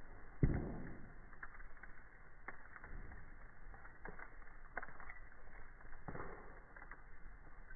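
Wood campfire crackling, with scattered sharp snaps and a louder pop about half a second in and another near six seconds.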